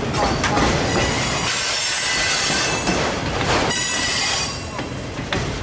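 Freight train rolling past close by, its steel wheels squealing in thin, high, steady tones over the rumble and clatter of the cars.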